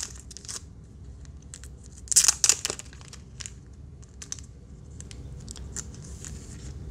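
Crinkling and crackling of a clear plastic wrapper around a card packet as it is handled and opened, with a louder burst of crinkles about two seconds in and scattered small crackles after.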